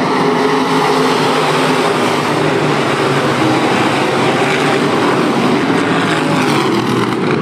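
A pack of IMCA Northern SportMod dirt-track race cars racing, their V8 engines running together in a loud, steady engine noise with several overlapping engine tones.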